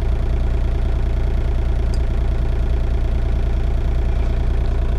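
Excavator's diesel engine idling steadily, an even low running note with a fast pulse.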